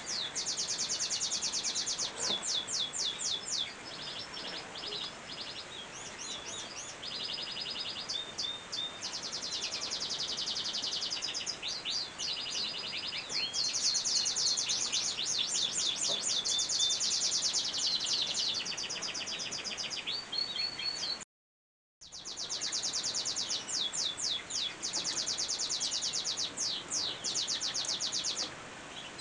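Caged canaries singing almost without pause: long, fast rolled trills and runs of quick repeated high notes, broken by one short silent gap about three quarters of the way through.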